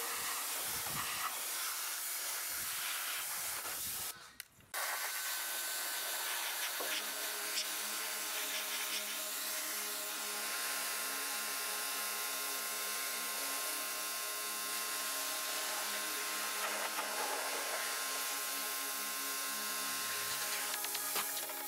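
Pressure washer spraying water onto a car's wheel and tyre: a steady hiss that cuts out briefly about four seconds in, with a steady hum under it from about seven seconds in.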